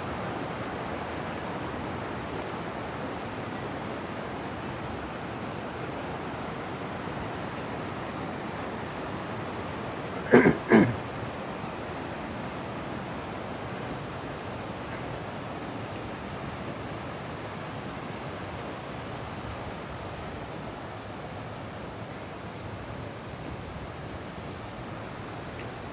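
Steady rushing of water from a waterfall. About ten seconds in comes a brief, louder double sound with a pitch that bends.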